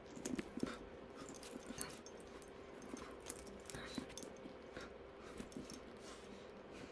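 Leather handbag being handled: faint scattered clicks and rustles, with small clinks of its metal hardware, over a faint steady hum.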